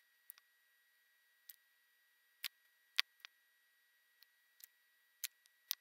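Light, irregular clicks and taps of a small circuit board, soldering iron and solder wire being handled on a work table, about ten sharp ticks spread unevenly, the loudest about three seconds in. A faint steady high whine runs underneath.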